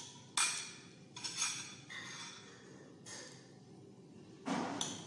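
Fork and spoon clinking and scraping against a plate while eating: several sharp clinks spread about a second apart, with a longer, louder one near the end.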